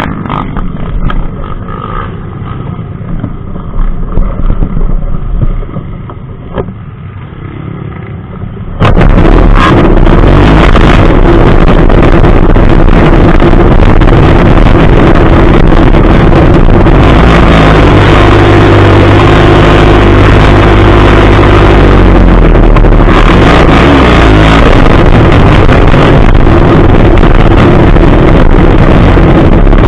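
Trail motorcycle engines running on a forest track. For the first nine seconds the engine sound is uneven and quieter; then it suddenly becomes a steady, very loud engine drone close to the microphone, near the point of distortion, and holds.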